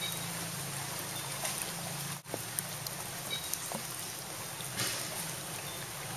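Steady rain falling on shallow floodwater, a constant hiss with scattered small drips and plinks; the sound drops out very briefly about two seconds in.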